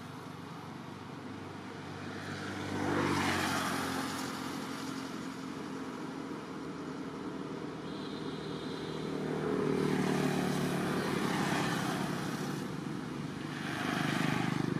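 Motor vehicles passing along the road, each swelling and fading over a few seconds: one about three seconds in, a longer one around ten seconds in, and another near the end.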